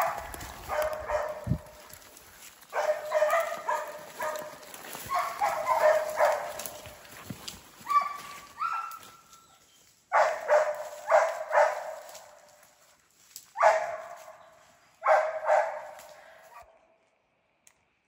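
Hunting dogs barking in fast volleys of several barks each, with short pauses between, as they bay a bear. A short whine rises about eight seconds in.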